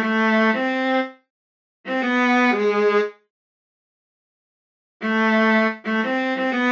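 Viola part played back by notation software with a sampled viola sound: a phrase of detached notes, a short rest about a second in, another brief phrase, then nearly two seconds of dead silence before the notes resume near the end.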